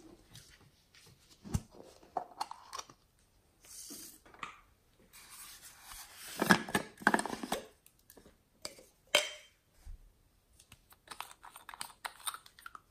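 Small hard-plastic novelty containers being handled and opened by hand: clicks, scrapes and rubbing of plastic. The loudest part is a scraping twist of a lid about six to seven seconds in, with a sharp click a little later and a run of quick small ticks near the end.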